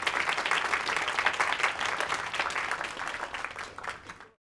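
Audience applauding: many hands clapping, easing off slightly and then cutting off suddenly about four seconds in.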